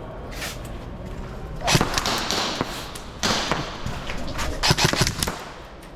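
Airsoft guns firing in three short bursts of sharp snaps and knocks, about two, three and a half, and five seconds in.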